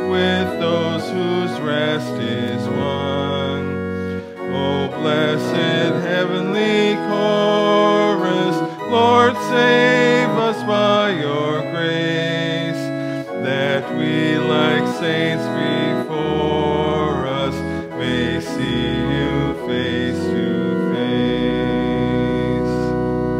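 Organ music played on a church organ: sustained chords over a deep bass line, changing every second or so, closing on a long held final chord over the last couple of seconds.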